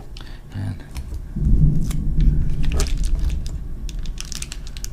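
Distant thunder rumbling, swelling about a second and a half in and fading over the next two seconds. Over it, foil-faced bubble insulation crinkles and crackles as it is pressed and smoothed by hand.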